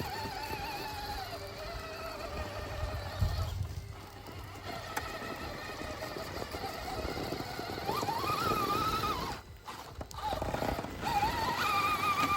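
Electric motor and gear whine of an Axial SCX6 RC crawler, its pitch wavering and rising with the throttle, jumping up sharply about eight seconds in and again near the end, with a short drop-out just before.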